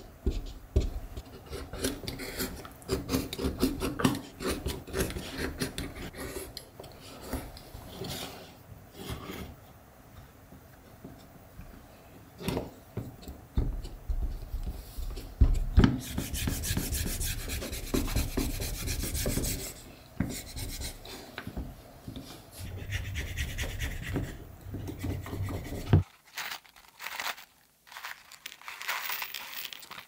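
Hand tool and fingers rubbing and scraping leather hard against a plywood form as it is pressed into shape, in repeated irregular strokes with occasional knocks. The last few seconds are much quieter, with a few small clicks.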